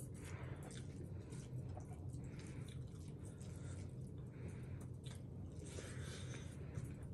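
Faint, wet eating sounds: fingers squishing and mixing rice with curry on a plate, then chewing. A steady low hum runs underneath.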